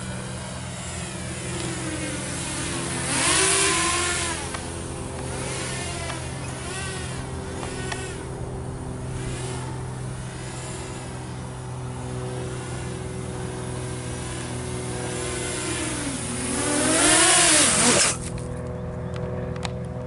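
Walkera F210 racing quadcopter's four brushless motors and propellers whining, the pitch rising and falling with the throttle, louder as it passes close about three seconds in and again near the end. The whine cuts off suddenly about eighteen seconds in as the quad lands and the motors stop.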